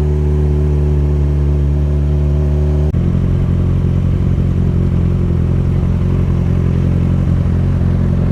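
2009 Yamaha FZ6R's inline-four idling steadily through a Hindle exhaust, fully warmed up; the note changes abruptly about three seconds in, then settles again.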